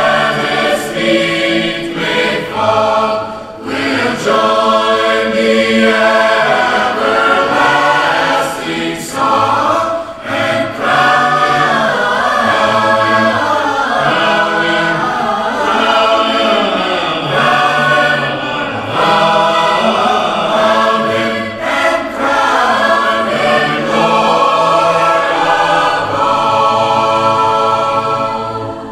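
Mixed choir of men's and women's voices singing a hymn in harmony, the sound dying away at the very end.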